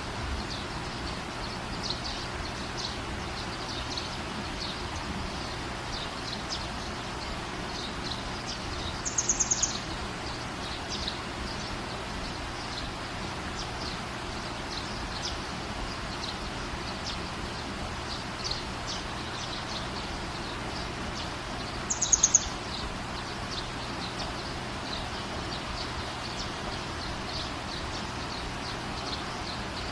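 Steady rain hiss with birds chirping throughout. Twice, about a third and two-thirds of the way through, one bird gives a louder, quick run of high repeated notes.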